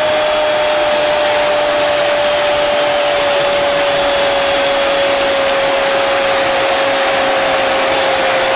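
A television football commentator's long drawn-out goal cry, one held note slowly sinking in pitch until it breaks off near the end, over a stadium crowd cheering.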